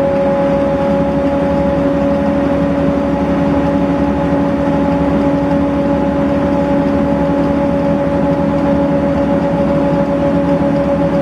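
Volvo B7RLE single-deck bus with a ZF automatic gearbox, heard from inside the saloon, running at a constant speed. It gives a steady drone with a few constant tones over road noise, and the pitch neither rises nor falls, so there are no gear changes.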